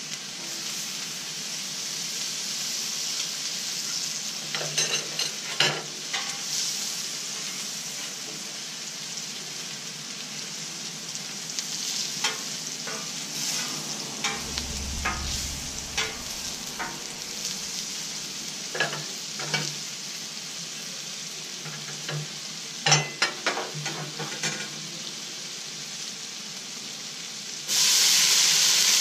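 Chicken and vegetables sizzling steadily on a Blackstone flat-top griddle, with a metal spatula scraping and clicking on the steel plate now and then. Near the end the sizzle suddenly grows much louder as rice is tipped from a pot onto the hot griddle to be fried.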